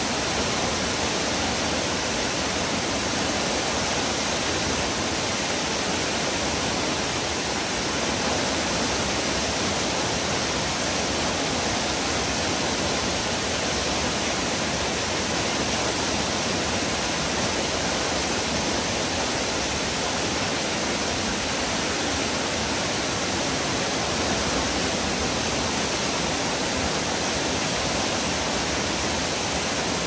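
Small waterfall cascading down rock steps close by: a steady, even rush of falling and splashing water.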